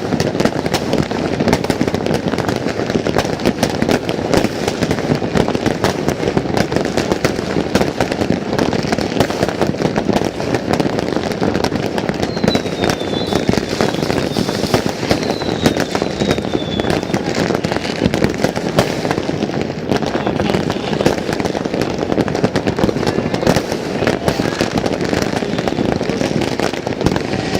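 Many fireworks and firecrackers going off at once in a dense, continuous crackle of bangs and pops. A few short falling whistles sound about halfway through.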